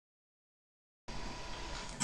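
About a second of dead silence, then the steady hiss and faint hum of an electric guitar amplifier with no notes being played yet.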